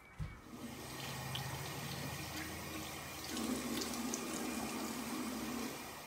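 Water running from a bathroom tap into a sink as hands are washed under it, a steady rush that swells about three seconds in. There is a brief knock just after the start.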